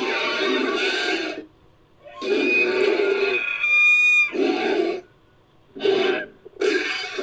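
Designed dinosaur call sound effect: four calls with short pauses between them, the second the longest and ending in a high whistling tone.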